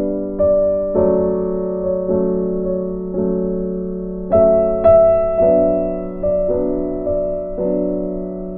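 Slow background piano music: soft chords struck about once a second, each ringing and fading before the next.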